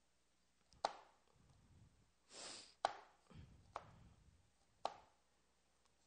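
Chef's knife slicing carrots thinly on a plastic cutting board: four faint, sharp knocks of the blade hitting the board, spaced unevenly about one to two seconds apart. A short hiss comes about two and a half seconds in.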